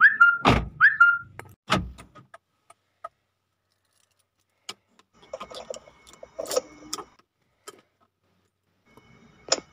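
Handling sounds in a parked car with the engine off: two heavy thuds early on, then scattered clicks and a jingle of keys about five to seven seconds in, ending in a sharp click. A bird chirps twice at the very start.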